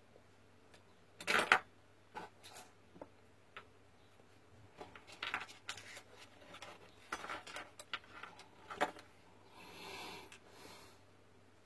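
Small hard clicks, taps and scrapes of tools and small parts being handled at a repair bench, the loudest about a second and a half in. A soft hiss lasts about a second near the end, and a faint steady hum runs underneath.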